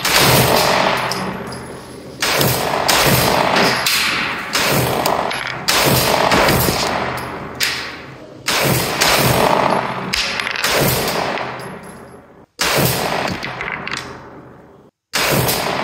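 Gunshots on an outdoor range, a sharp report every two to three seconds, each trailing off in a long echo. The sound cuts out abruptly twice near the end.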